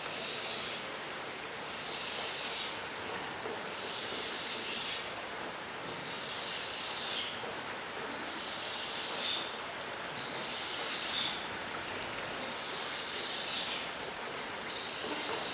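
Scarlet ibis chicks begging at the nest: a high-pitched call about a second long, repeated every two seconds or so, over a steady hiss.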